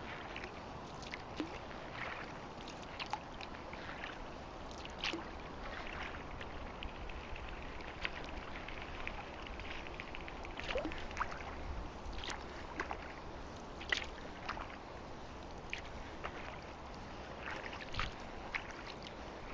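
Kayak paddling on a lake: a paddle dipping, with small irregular splashes and drips of water around the kayak, over a low steady rumble.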